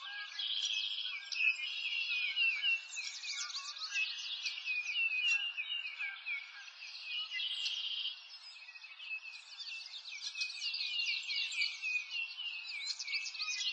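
Many small birds chirping and singing at once: a dense chorus of quick, high notes that goes on without a break.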